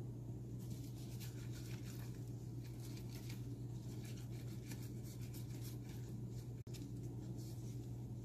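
Banana leaves crinkling and rustling in light, scratchy ticks as hands fold a leaf wrapper, over a steady low hum.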